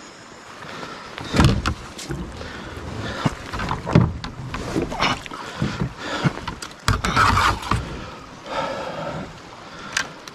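Kayak paddle strokes in shallow river water: irregular splashes and knocks of the paddle against the kayak hull, with hard breathing between them.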